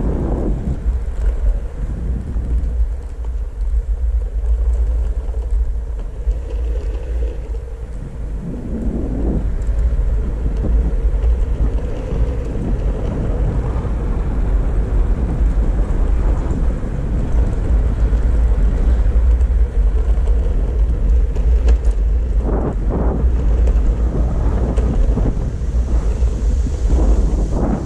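Steady low rumble of wind on the microphone and the Backfire Ranger X2 electric all-terrain skateboard's wheels rolling at speed, with a faint steady hum.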